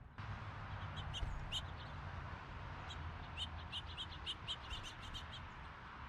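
Small birds giving short, high chirps: a few scattered ones, then a quick run of about three or four a second, over a steady outdoor hiss that comes in abruptly at the start.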